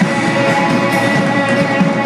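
Rock band playing live, a loud, dense mix of guitar and drums.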